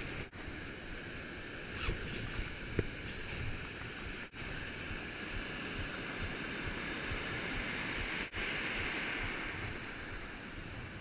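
Surf washing on a beach, with wind on the microphone. The sound cuts out very briefly about every four seconds.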